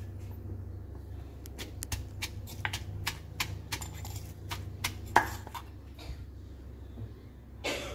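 Wooden pestle pounding shredded green mango in a granite mortar while a metal spoon scrapes and turns it, giving irregular knocks and clinks, the loudest a little past the middle.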